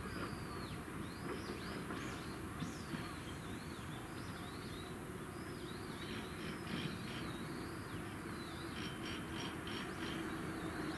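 Small birds chirping and calling again and again over a steady low town background. Near the end a low hum slowly builds, the start of an approaching train.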